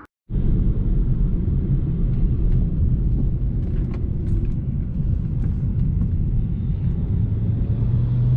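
BMW 335i's twin-turbo N54 inline-six, with full bolt-on mods, running as the car drives: a steady low rumble with road noise that begins abruptly. A low drone comes in near the end.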